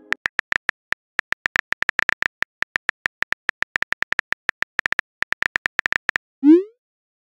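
Rapid on-screen phone keyboard clicks, several a second, as a text message is typed. Near the end there is a single short rising swoosh as the message is sent.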